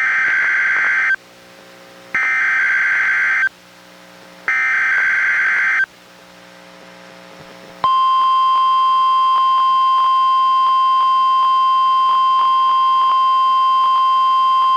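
NOAA Weather Radio Required Weekly Test on a weather radio: three bursts of SAME digital header tones, each just over a second long with a second's gap between, then, about two seconds later, the steady 1050 Hz warning alarm tone starts and holds, broken by faint clicks. The transmitter was glitching, so the header bursts could only be partly decoded.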